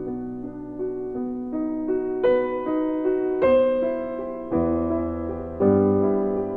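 Background piano music: a slow melody of single notes over deeper chords, with bass notes coming in about two thirds of the way through.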